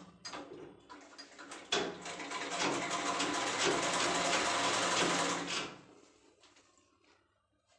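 Sewing machine stitching a zip onto fabric: a run of fast, even stitching strokes for about four seconds, starting a little under two seconds in and then slowing to a stop. A few light clicks come before it.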